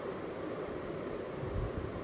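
Faint, steady background hiss of room noise.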